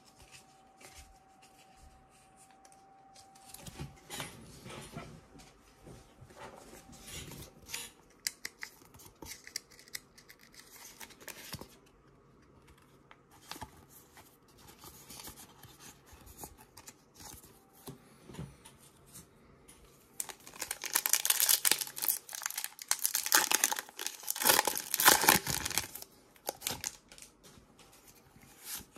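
Pokémon trading cards and a plastic card sleeve being handled, with light rustling and clicks. About 21 seconds in comes a loud crinkling tear of about five seconds: the foil wrapper of a Pokémon booster pack being ripped open.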